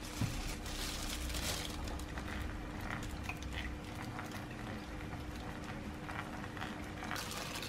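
Ground crab paste being pressed and stirred by a gloved hand in a fine metal mesh sieve sitting in crab liquid: soft, irregular squishing and sloshing.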